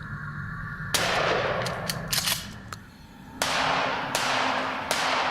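A string of about eight gunshots, unevenly spaced: one loud shot about a second in, several lighter cracks over the next two seconds, then three loud shots in the second half, each with a long echoing tail.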